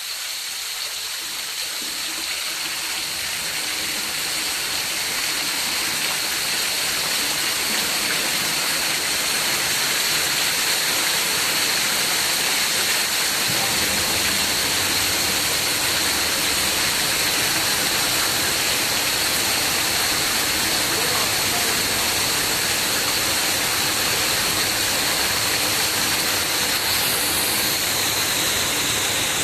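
Steady rushing hiss of flow through a valve that has just been opened further, with a thin high whistle on top. It builds over the first ten seconds or so, then holds steady.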